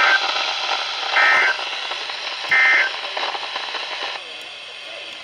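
Three short digital data bursts of the Emergency Alert System, about 1.3 seconds apart: the SAME end-of-message code that closes a weather warning broadcast. A steady radio hiss runs under them and drops away about four seconds in.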